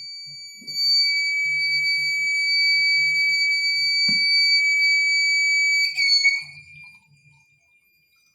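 Electronic buzzer sounding one steady high-pitched tone inside a glass, with a knock about four seconds in. Near six seconds there is a clatter, and the tone then carries on much fainter.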